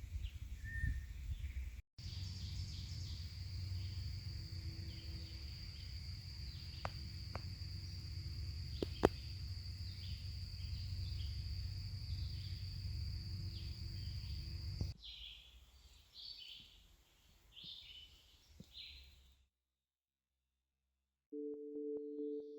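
Outdoor nature ambience: a steady high-pitched insect drone over low wind rumble, with birds chirping now and then. It gives way to a run of short bird chirps, then a brief silence, and steady electronic music tones begin near the end.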